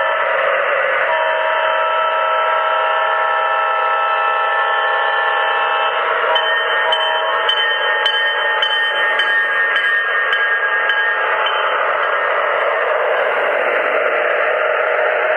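Model diesel locomotive's electronic sound system blowing a multi-note horn chord for about five seconds, then a second horn chord at a different pitch with a bell ringing about two to three times a second, over a steady hiss of running noise.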